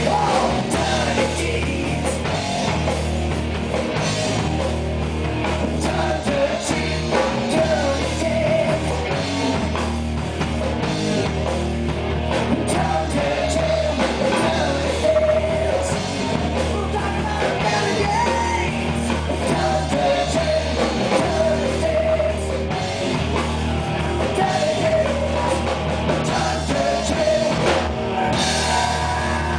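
Live rock band playing: a male singer over electric guitar, bass guitar and a drum kit.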